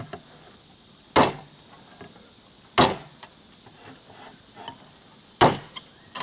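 A knife struck down on the top of a can of evaporated milk to punch it open in place of a can opener: three sharp strikes, a second or two apart.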